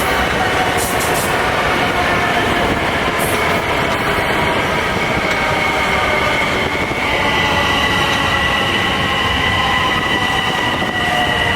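A train running past on the rails: loud, steady wheel-on-rail noise with sustained high-pitched tones that shift in pitch about seven seconds in.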